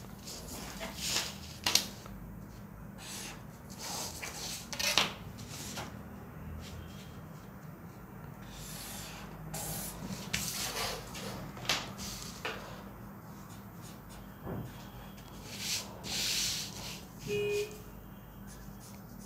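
Pen drawing lines on pattern paper along a ruler, with the paper and ruler shifting on the table: irregular short scratching and rustling strokes, and a brief squeak near the end.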